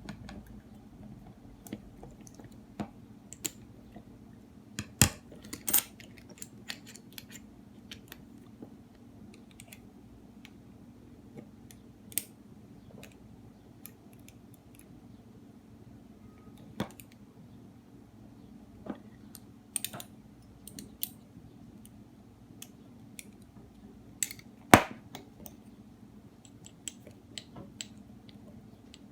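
Small metal clicks and taps of a hex screwdriver and wrench on a Van Staal spinning reel's handle and knob screw as the knob is screwed back on and tightened. The clicks come irregularly, with two sharper knocks, one about five seconds in and one late on.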